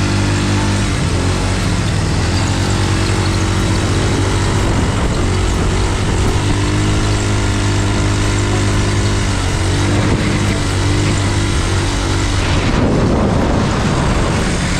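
An off-road vehicle's engine running under load, its pitch shifting up and down as the engine speed changes, with a rush of noise near the end.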